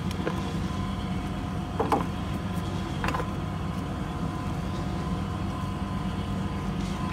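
A steady low mechanical hum, with a few light clicks about two and three seconds in.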